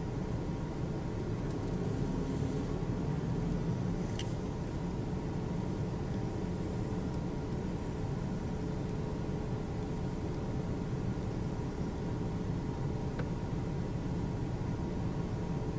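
Steady low rumble of a car running, heard from inside the cabin, with a faint steady hum.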